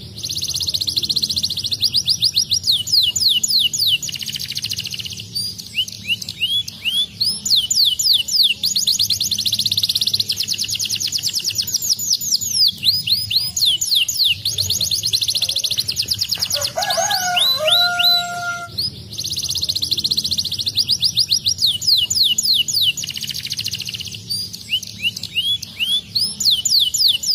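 Domestic canary singing: long, fast trills of rising chirps in phrases broken by short pauses, with a pair of lower whistled notes about two-thirds of the way through. A steady low hum runs underneath.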